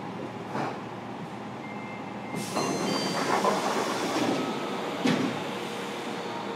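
Fukuoka City Subway 1000N series train running, heard from inside the car: a steady rumble of wheels on rail. About two and a half seconds in it grows louder with brief high-pitched squeals. There is a short knock near the start and another about five seconds in.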